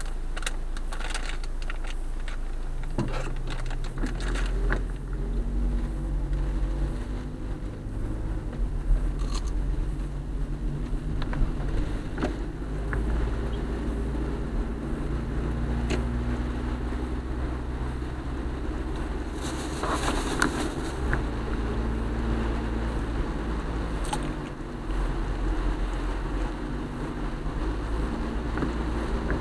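Car driving on a wet road, heard from inside the cabin: a low engine and road rumble that grows about three seconds in as the car pulls away from a stop, then runs on steadily, with scattered light taps and a brief hiss about twenty seconds in.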